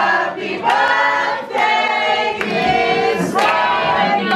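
A group of party guests singing a birthday song together in unison, with hand claps.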